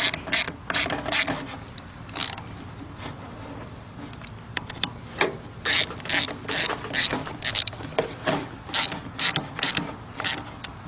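Socket ratchet wrench clicking in quick back-and-forth strokes as 10 mm bolts are tightened, in bursts: a few strokes at the start, one at about two seconds, a quiet pause, then a steady run of strokes from about five seconds to near the end.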